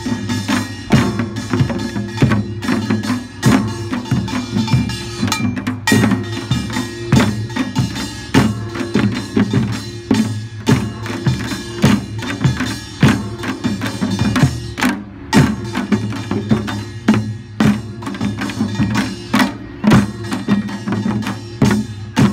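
Korean pungmul percussion ensemble playing: drums and gongs struck in a fast, steady repeating rhythm, with metallic ringing carrying over the strikes.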